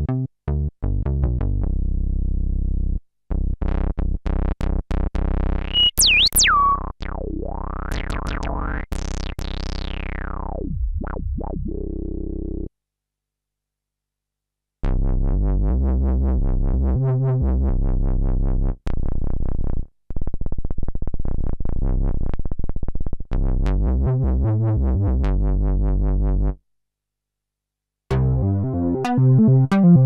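Synthesizer presets from the DinoPark's Pro-12, a virtual Prophet-5 model, auditioned one after another: sustained notes with a high tone swooping down and then rising and falling again about six to eleven seconds in, then after a brief pause a deeper, bass-heavy patch. Sound stops briefly about 13 and 27 seconds in between presets.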